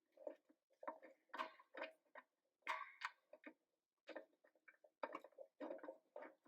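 Faint, irregular small metallic clicks and taps as an M5 bolt with its washer is fitted and threaded into the skid plate's front bracket.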